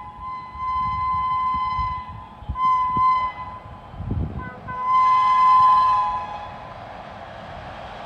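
Locomotive horn of the approaching Sealdah Duronto Express sounding in a series of blasts: one long, two short, then another long one about five seconds in. Near the end the rumble of the oncoming train grows louder.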